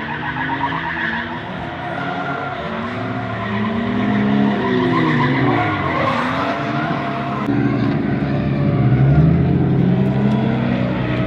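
Drift car engines revving up and down over a hazy tyre squeal as cars slide around the track. About two-thirds of the way through, the sound changes to a steadier engine running with one rising rev.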